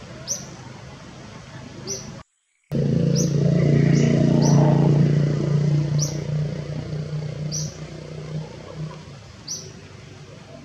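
A small bird's short, high chirps, each falling slightly in pitch, repeat about once a second. After a brief cut-out a little over two seconds in, a loud low droning hum starts suddenly and fades away over the next several seconds.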